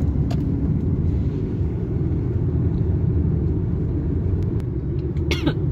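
Steady low rumble of road and engine noise inside a moving car's cabin. A brief higher, falling sound comes near the end.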